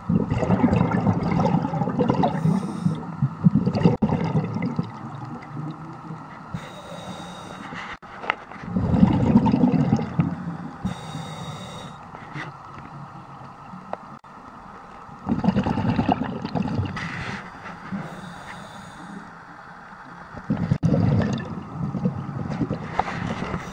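A scuba diver breathing through a regulator underwater: a hiss on each inhale and a rush of exhaust bubbles on each exhale, repeating about every six seconds, with four exhales.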